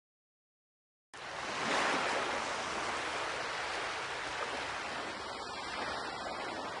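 Silence for about a second, then a steady rushing noise like hiss or surf swells in and holds without any tone or beat.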